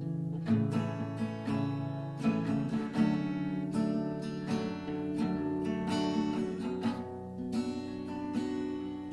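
Acoustic guitar playing strummed chords with no singing, the chord changing every second or so.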